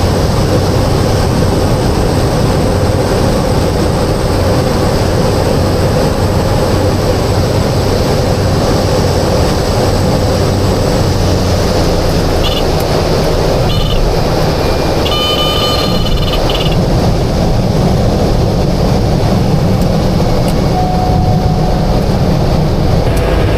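Cessna Caravan's PT6A turboprop engine and propeller running steadily, heard from inside the cockpit during a landing. About halfway through come two short high beeps and then a longer high tone.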